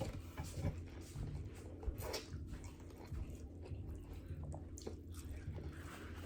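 Someone chewing seafood close to the microphone: irregular wet clicks and smacks over a low steady hum.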